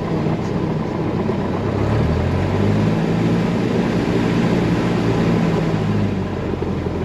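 Cessna 172's piston engine running at low power, heard inside the cabin, with a steady drone whose pitch rises a little about two seconds in as power is added while lining up on the runway.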